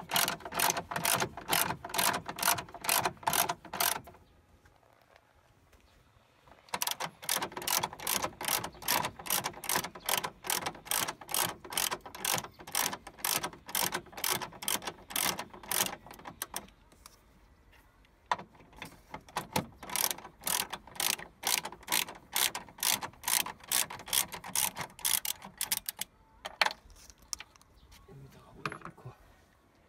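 Socket ratchet wrench clicking rapidly, several clicks a second, as 12 mm bolts on the 12 V battery tray are backed out. The clicking comes in long runs broken by two pauses of two to three seconds, with only a few scattered clicks near the end.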